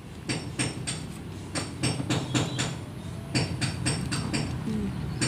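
Repeated sharp metallic taps, a few a second and unevenly spaced, each with a short high ring, like hammering on metal.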